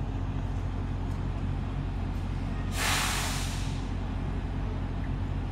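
A sharp hiss of released air lasting about a second, about three seconds in, typical of a truck's air brakes, over a steady low engine hum.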